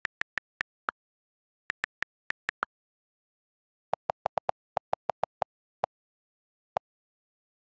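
iPad on-screen keyboard key clicks. Two quick runs of higher-pitched taps come as letters are typed, then from about four seconds in a faster run of lower-pitched clicks from the delete key erasing text, ending with two single clicks.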